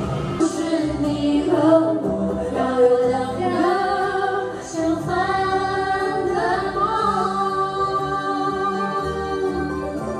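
Karaoke singing: a woman sings long held, wavering notes over a backing track.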